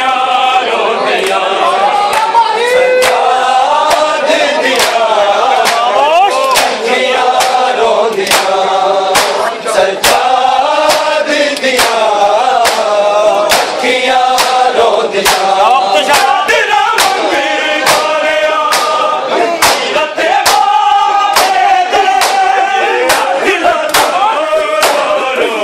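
Group of men reciting a Punjabi noha (Shia lament) in unison, a sustained chanted melody, with sharp hand slaps of matam (chest-beating) keeping time about once a second.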